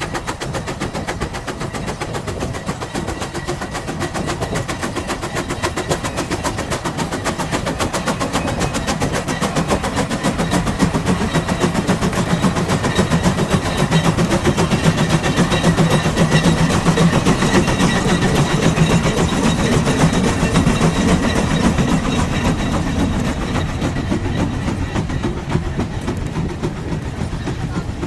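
Case 150 HP steam traction engine working hard under load, its exhaust chuffing in a fast, even beat that grows louder through the middle and eases toward the end.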